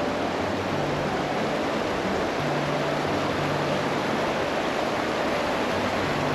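Shallow mountain river rushing over a stony bed: a steady, even rush of flowing water.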